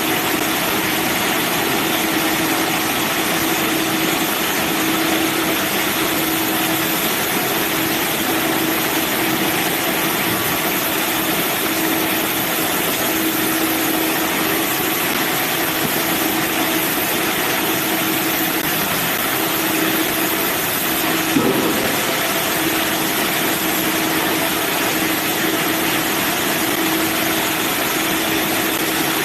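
Band sawmill running steadily, a continuous loud mechanical noise with a steady hum. A brief knock sounds about 21 seconds in.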